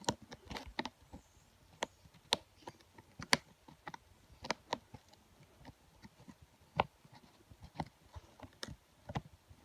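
Irregular small clicks and taps of fingers handling a laptop screen's ribbon-cable connector and its metal hinged locking clip while lining the connector up.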